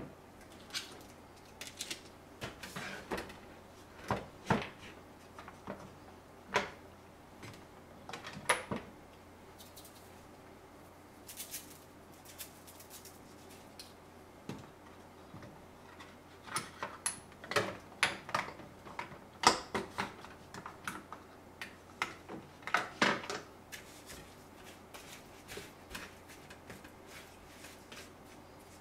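Irregular taps, knocks and clatter of hands at work on a kitchen counter: a knife and wooden cutting board, and a plastic tray and steel bowls handled and set down while raw chicken is sorted. There is a busier run of knocks a little past the middle.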